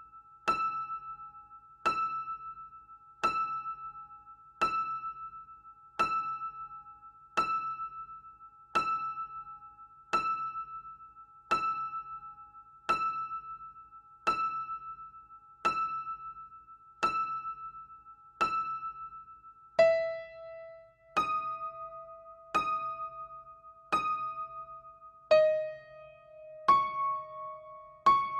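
Slow, sparse piano music: one high note struck about every one and a half seconds, each note fading away before the next. About two-thirds of the way in, the repeated note gives way to lower, changing notes.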